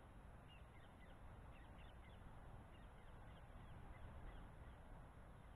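Near silence: faint low rumble and hiss with scattered faint, distant bird calls.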